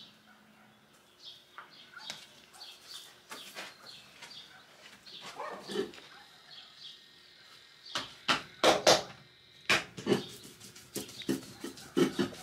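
A series of sharp knocks and clatters, sparse at first and then loud and rapid over the last few seconds.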